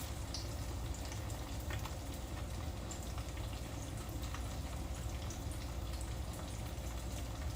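Korean corn dogs deep-frying in hot oil: a steady bubbling sizzle with a few faint pops.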